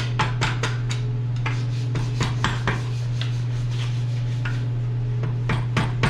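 Quick, irregular light clicks and clinks of metal parts and tools being handled while working a motorcycle's rear wheel axle loose, in two bunches near the start and near the end, over a steady low hum.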